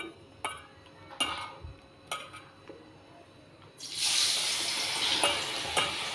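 A few light clicks from battered potato slices being handled in a steel bowl, then about four seconds in a sudden, steady sizzle as the buckwheat-batter-coated potato slices go into hot refined oil in a kadhai to deep-fry as pakoras.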